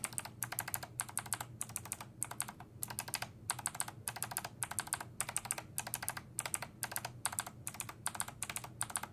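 Mechanical keyboard with Gateron Melodic switches being typed on steadily: a continuous run of quick keystroke clacks, several a second, with brief pauses between bursts.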